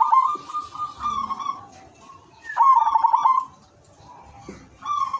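Zebra dove (perkutut) singing: phrases of quick stuttering coos that open with a sharp note, repeated about every two and a half seconds.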